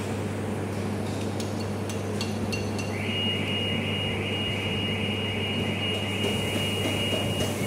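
A few light clicks and taps of small metal and plastic parts as an idle air control valve is fitted onto a throttle body, over a steady low hum. A faint high steady whine joins about three seconds in.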